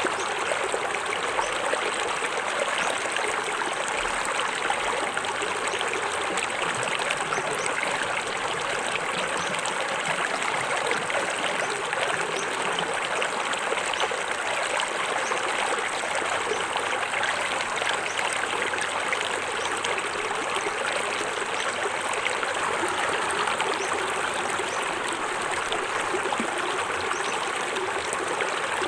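Small forest waterfall, water splashing and trickling over rocks in a steady rush with no pauses.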